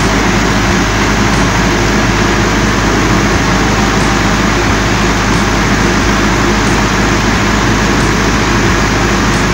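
A 22 kVA Able diesel standby generator running steadily with an even hum. It is running off load: the automatic transfer switch has handed the supply back to mains, and the generator is running on before its automatic shutdown.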